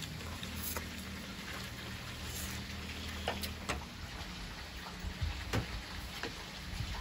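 Scattered light clicks of chopsticks against ceramic plates while eating, a few sharper ones in the middle and near the end, over a steady low hum and hiss.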